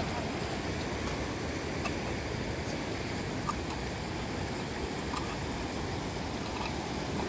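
Steady rushing of fast river water, with a few faint clicks.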